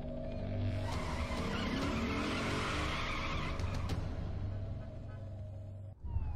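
Car tyres skidding and an engine revving as a car speeds off, swelling up over the first few seconds and fading out, over a steady, tense music score.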